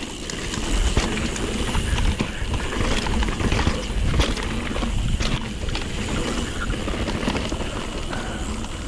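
Mountain bike ridden fast downhill on a dirt trail: wind rumbling on the microphone, tyres rolling over the ground, and the chain and frame rattling with many small knocks.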